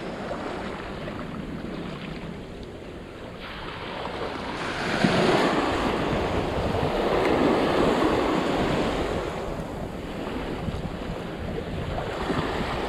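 Ocean surf washing onto the beach, with wind buffeting the microphone. The wash swells louder a few seconds in, then eases off.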